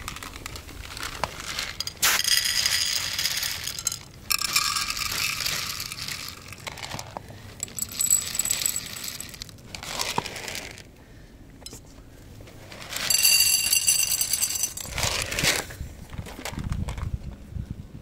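Dry cat kibble poured from a plastic bottle into ceramic bowls and plates, the hard pellets rattling and clattering in about four separate pours of one to two seconds each.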